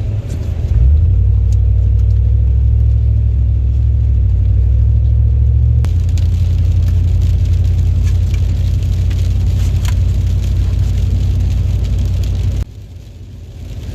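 Steady low rumble of a moving car, heard from inside the cabin. It grows louder about a second in and drops off abruptly near the end.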